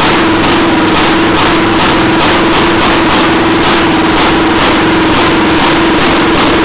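1920s–early 1930s Jacobsen two-stroke engine running steadily on its own, with an even, pulsing beat and no stumbling. It is the freed-up, re-honed engine running well on its new magneto ignition.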